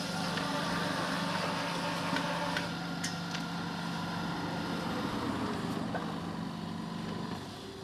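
Excavator's diesel engine idling with a steady low hum, with a couple of sharp clicks; the hum stops about seven seconds in.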